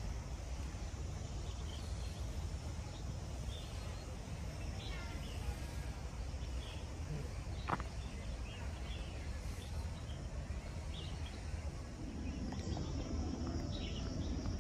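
Outdoor ambience with scattered short bird chirps over a steady low rumble, and a single sharp click about eight seconds in. Faint voices come in near the end.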